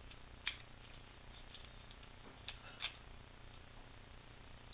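A few faint clicks and taps of small-parts handling as the grips are worked off a Charter Arms .38 Special revolver, over a faint low hum.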